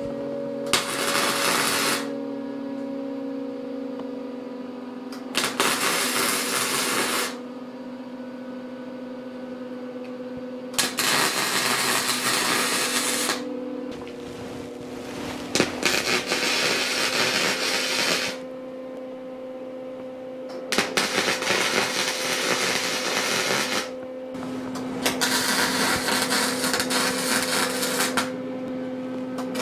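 Arc welding on a steel bracket: about six welding runs of two to three seconds each, a loud crackling and sizzling arc that starts and stops, over a steady hum.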